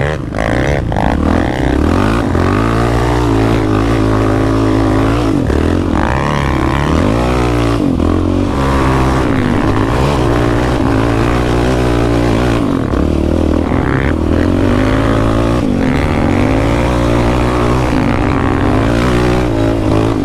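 Yamaha Raptor 700 sport quad's single-cylinder four-stroke engine, fitted with an HMF full exhaust, running hard under throttle, its revs rising and falling again and again as the rider works the throttle and gears.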